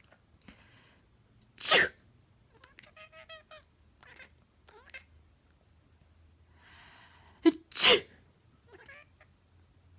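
A person sneezes loudly, and about a second later a pet cat answers with a quick run of short chattering chirps. Near the end comes a second sneeze, after a breathy intake.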